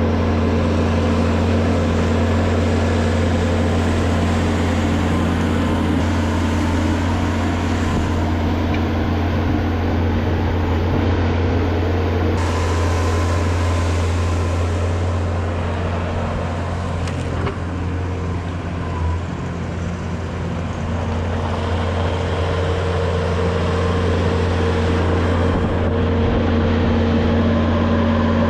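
Portable sawmill's engine running steadily with a constant low hum, not under load.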